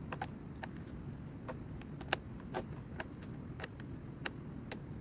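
Fresh broccoli florets being snapped off the stalk by hand: a dozen or so crisp snaps at irregular intervals, over a low steady rumble.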